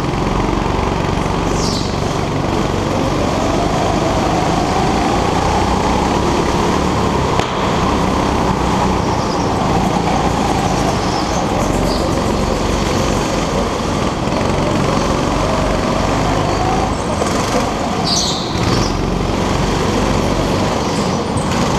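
Go-kart engine running hard, heard from on board, its pitch rising and falling as the throttle opens and closes through the corners. A few short high squeals cut in, about two seconds in and again near the end.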